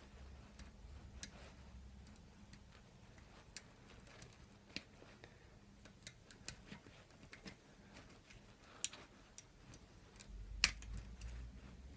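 Faint, irregular small metallic clicks of a lock pick and tension tool working in a Millenco Magnum euro cylinder, nudging the side pins toward the sidebar; one sharper click near the end.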